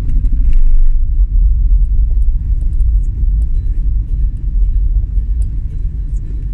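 Steady low rumble of a vehicle travelling along a road, heaviest in the first second, with faint scattered ticks over it.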